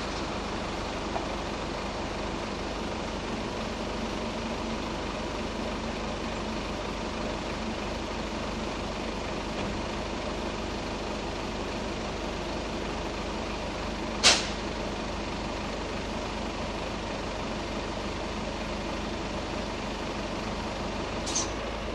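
Heavy road vehicles idling steadily, with a short, sharp hiss about fourteen seconds in and a smaller one near the end.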